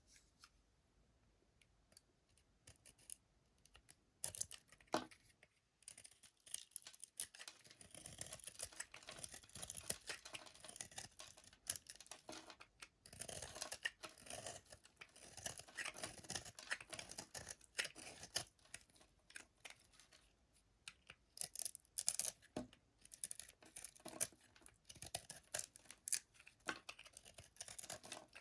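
Bar soap being cut with a blade: crisp, crackly scraping strokes with sharp clicks, irregular and close together, starting a few seconds in.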